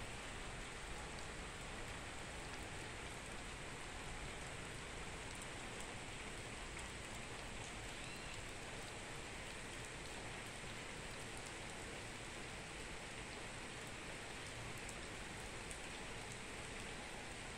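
Steady rain falling, an even hiss with a few faint ticks of single drops.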